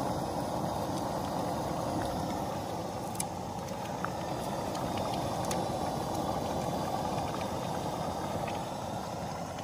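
Steady roar of a Coleman propane camp stove's burner under a steaming pot, with a few faint clicks.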